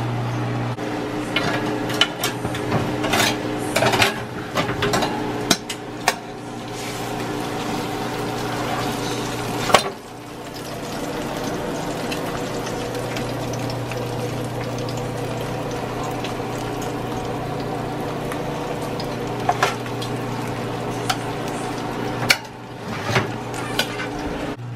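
Metal tongs clicking and knocking against a pan as pork pieces are handled, the clatter thickest in the first several seconds with one sharp knock near the middle. Under it runs a steady frying sizzle and a constant low hum.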